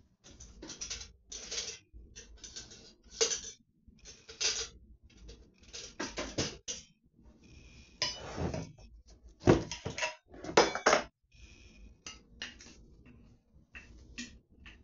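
Kitchen clatter: pots, dishes and utensils being handled and moved about on a counter, in irregular knocks and scrapes, loudest twice near the middle.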